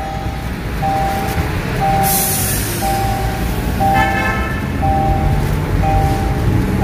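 A car's dashboard warning chime beeps about once a second in a steady two-note pulse, over engine and road rumble inside the moving Kia Sportage's cabin. A short higher-pitched tone sounds about four seconds in.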